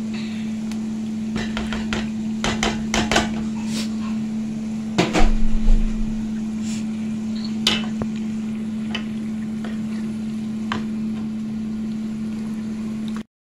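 A wooden spoon knocking and scraping against a plastic bowl and a metal cooking pot as blended tomatoes are scraped in and stirred, with the loudest run of knocks about halfway through. A steady low hum runs underneath, and the sound cuts off suddenly near the end.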